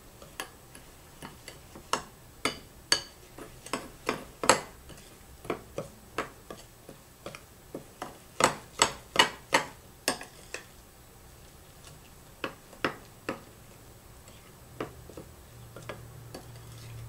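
A spoon knocking and clinking against a bowl while stirring a biscuit-crumb cake batter: irregular sharp taps, about one or two a second, with a quick run of several about halfway through.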